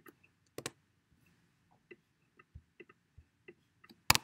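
Scattered single key presses on a computer keyboard: about a dozen short, sparse clicks with pauses between them, the loudest about half a second in and just before the end.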